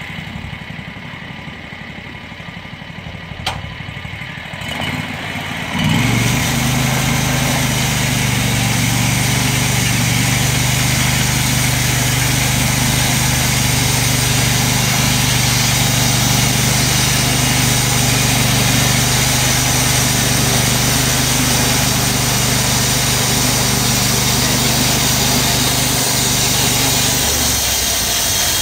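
The new gas engine on a LumberMate 2000 portable bandsaw sawmill idles, then is throttled up about six seconds in and runs steadily at high speed. Its pitch drops slightly near the end.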